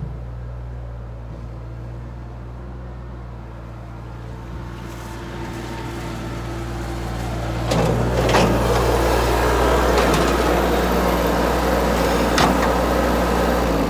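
New Holland compact tractor's diesel engine running, growing louder as the tractor drives up close, with a couple of sharp knocks near the end.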